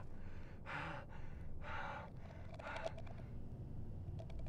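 A man gasping for breath: three short, heavy breaths about a second apart.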